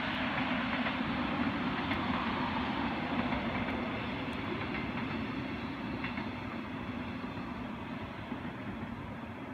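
Regional train of a class 143 electric locomotive and double-deck coaches running past at speed: a steady rolling rumble that slowly fades as it draws away.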